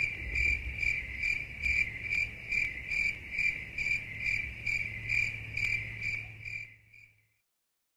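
Crickets chirping in an even rhythm, a little over two chirps a second, over a low hum. The sound fades and stops about seven seconds in.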